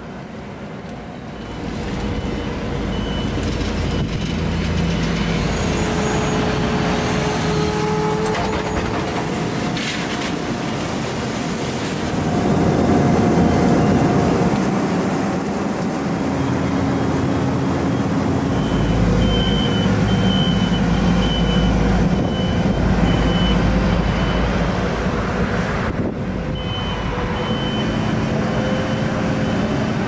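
Diesel engines of asphalt paving machinery (road paver, feeder and rollers) running steadily under load. In the second half a reversing alarm beeps repeatedly at one high pitch, in two runs.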